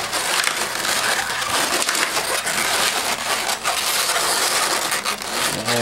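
Latex twisting balloons rubbing against each other and against hands as they are twisted and pushed into place. The sound is a dense, continuous crackling rub with many sharp crackles.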